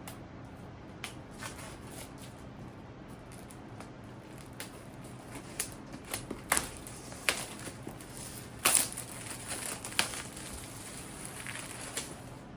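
Packaging of a boxed book set being handled and opened: irregular crinkling, rustling and sharp clicks, busiest in the second half and loudest about nine seconds in.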